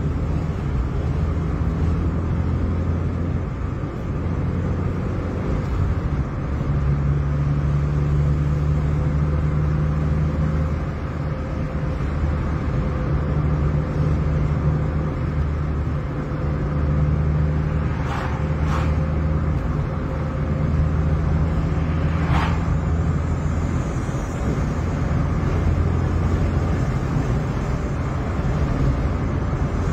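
Car driving at a steady speed, heard from inside the cabin: a steady low engine and road drone with tyre noise. Three brief clicks come about two-thirds of the way through.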